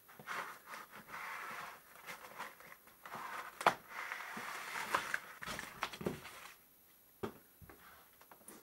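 Plastic packing wrap crinkling and rustling as hands handle a wrapped machine in a wooden crate, with several sharp knocks; the loudest knock comes a little before the middle. The rustling stops about six and a half seconds in.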